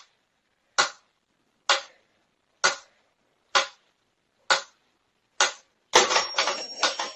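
A sharp tap or knock repeated at an even pace, about one a second, seven times, then a busier clatter of taps and rustling about six seconds in.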